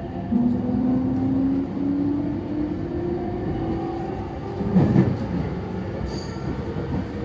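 JR East E231-series electric train heard from inside the car while accelerating: the Mitsubishi IGBT inverter and traction-motor whine climbs slowly in pitch in small steps over the rumble of the wheels, with a short rattling clatter about five seconds in. This is the ordinary acceleration sound of the E231; the abnormal gear noise of this car comes only when braking.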